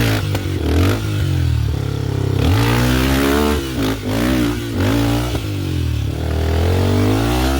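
Motorcycle engine running under throttle, its pitch rising and falling repeatedly as it revs up and eases off.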